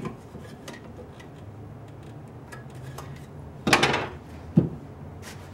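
Wooden box parts being handled on a workbench: small clicks and taps, then a short scrape about three and a half seconds in, followed by a single sharp knock as a piece is set down.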